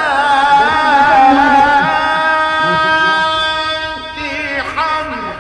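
A man's voice in Quranic recitation (tilawat), sung in a long ornamented phrase whose pitch wavers and then settles into a long held note. The phrase ends about four seconds in.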